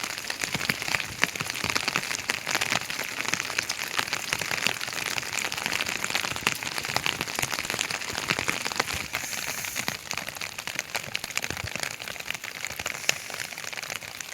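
Heavy rain falling steadily, a dense patter of countless drops hitting surfaces.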